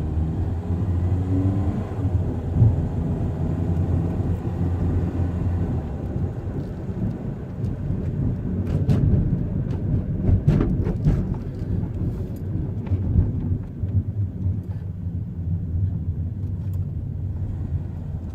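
Cabin road noise of a 2005 Chevy Cobalt driving at about 20 to 30 mph: steady low tyre and drivetrain rumble, with a handful of sharp knocks around the middle. The owner is chasing an intermittent front-end knock that changes with speed and that he cannot place between the steering and the drivetrain.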